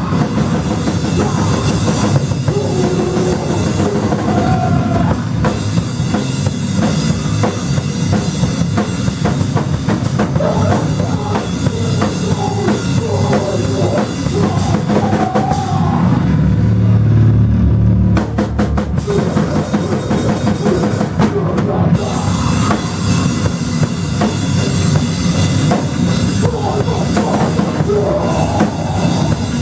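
Live band playing loud rock music, the drum kit to the fore with bass drum and cymbals. A little over halfway through, the high end falls away for a few seconds and a heavy low bass swells, then the full band comes back in.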